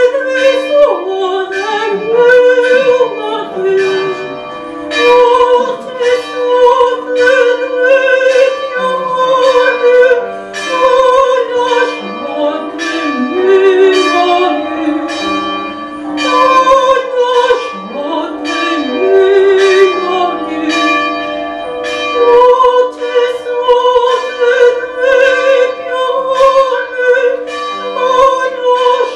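Countertenor singing a slow lyric song in a high voice with wide vibrato and long held notes, over sustained instrumental accompaniment.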